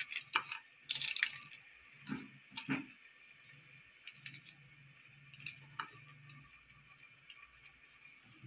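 Small knife slicing green chillies held in the hand, with cut pieces dropping onto a plate: scattered small clicks and taps, busiest in the first three seconds, over a faint low hum.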